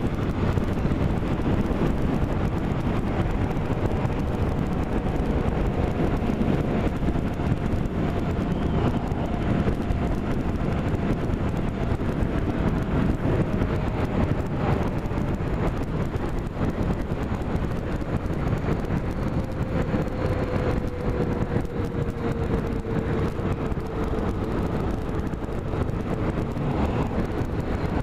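A moving vehicle's steady running noise with wind rushing over the microphone, and a faint engine tone that slowly falls in pitch twice.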